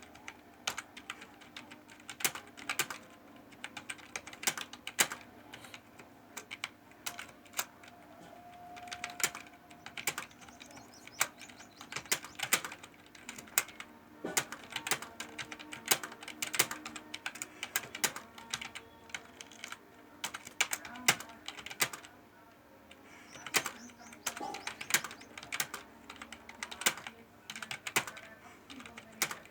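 Typing on a laptop keyboard: quick, irregular runs of key clicks, with a brief pause about three quarters of the way through.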